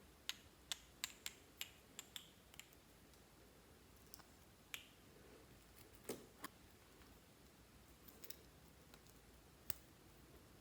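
Fluffy slime being worked by hand, giving sharp little pops and clicks as trapped air pockets burst. There is a quick run of about eight in the first two and a half seconds, then a few scattered ones.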